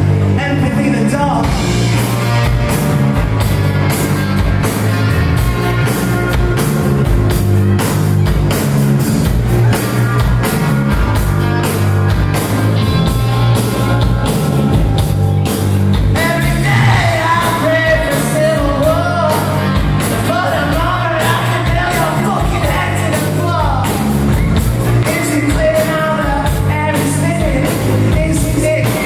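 Live rock band playing loud, with electric guitars, bass and drums keeping a steady beat. A man's voice sings over the band from about halfway through.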